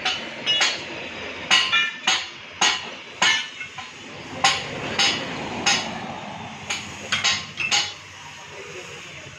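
Sharp metallic clanks of steel striking steel, about fifteen at an uneven pace, several with a brief ring, stopping about eight seconds in, over a steady low background noise.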